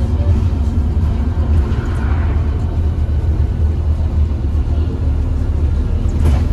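Scania OmniCity N230UD double-decker bus under way, heard from inside the lower deck: a steady low rumble of its diesel engine and road noise.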